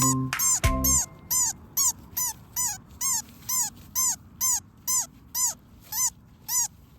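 Music ends about a second in. Then a newborn baby animal in a nest cries in a steady run of short, high squeaks, each rising and falling in pitch, about two a second.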